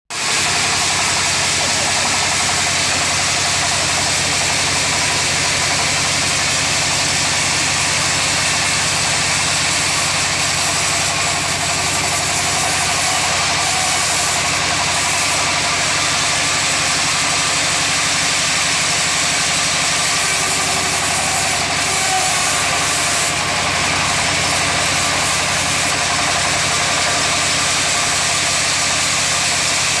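Bandsaw machine running steadily with a continuous mechanical hum and a high hiss.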